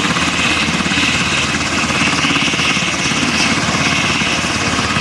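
Australian Army Black Hawk helicopters running on the ground: a loud, steady turbine whine over the fast, even beat of the rotor blades.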